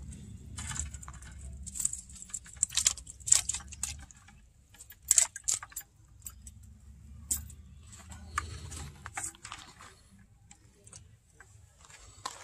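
Black wire-mesh crawfish trap being pulled open and shaken out over a plastic bucket: irregular bursts of rattling and sharp clicks, densest in the first few seconds and again near the middle.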